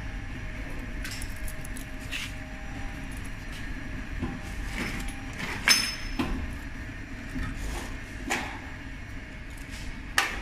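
Electric hot-air tunnel shrink oven running, with a steady hum from its hot-air circulation and wire-mesh conveyor. A few sharp clinks come through, the loudest a little past halfway.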